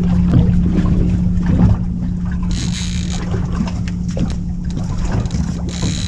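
Boat engine running steadily at idle, a low even hum, with a short hiss about two and a half seconds in and again near the end.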